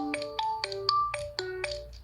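A stock ringtone of the Nokia 3 (TA-1032) smartphone playing: a quick melody of short, sharply struck pitched notes, three to four a second, often sounding several together as chords.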